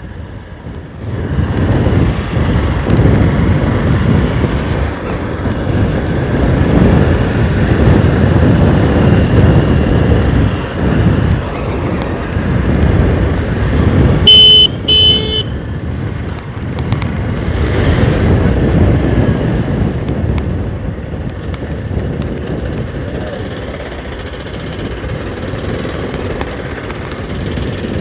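Motorcycle on the move, heard from the rider's camera: the engine running under a steady rush of wind and road noise. A horn honks twice in quick succession about halfway through.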